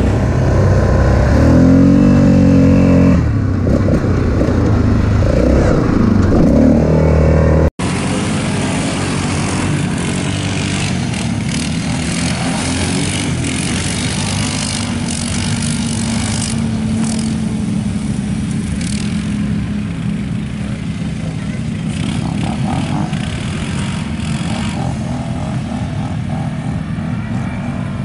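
ATV engines running and revving, their pitch rising and falling. After a sudden cut about eight seconds in, a steadier drone of ATVs being ridden across sand and mud.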